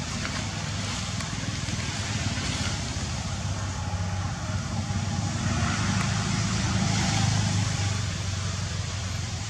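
A steady low engine hum, swelling from about five to eight seconds in.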